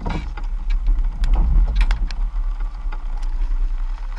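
Boat noise at sea: a strong, fluctuating low rumble with scattered sharp clicks and knocks, loudest about a second and a half in.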